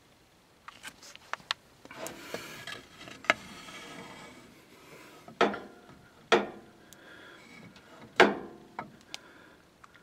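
Wooden boards being handled and shifted in a furnace cabinet: scraping about two seconds in, then several sharp knocks, the loudest near the end.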